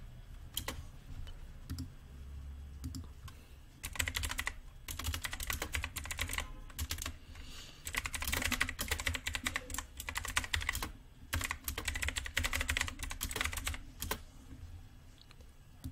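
Typing on a computer keyboard: a few scattered keystrokes at first, then quick runs of key clicks with short pauses between them from about four seconds in, tailing off near the end.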